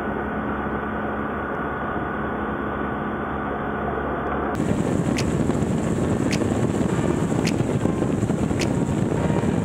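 BMW R1200GS boxer-twin motorcycle cruising at highway speed, its engine note running steadily under wind rush. About four and a half seconds in, the sound cuts to a louder, rougher wind rush on the microphone, with a faint tick about once a second.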